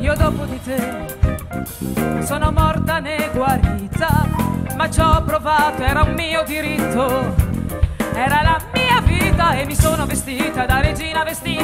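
A woman singing a song live into a microphone, backed by a small jazz-pop band with drums.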